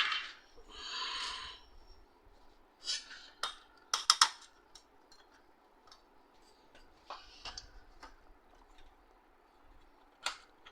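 Plastic printer cover and parts being handled and fitted by hand: scattered clicks and knocks, a short scraping rustle near the start, and a quick cluster of sharp clicks about four seconds in.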